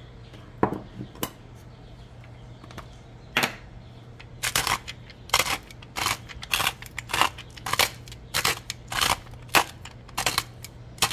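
Salt and pepper being dispensed over raw vegetables in a crockpot: a few separate strokes at first, then from about four seconds in a steady run of short, sharp strokes about two a second.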